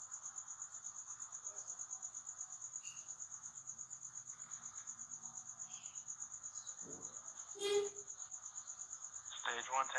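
Insects chirping: one steady high-pitched note pulsing evenly several times a second, as picked up by a launch-pad microphone.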